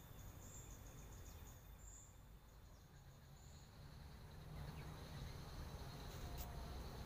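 Faint insects trilling steadily, with a pulsing, higher chirp in the first few seconds, over a low rumble. One sharp click comes near the end.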